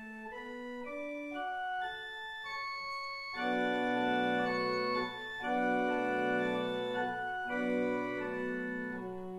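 Church organ playing a hymn tune: a single-note melody steps upward for about three seconds, then full sustained chords with a low pedal bass come in, with brief breaks between phrases.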